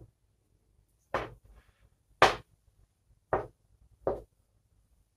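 Four short, sharp taps about a second apart: the edge of a long palette knife being pressed onto the canvas to print thin lines of oil paint.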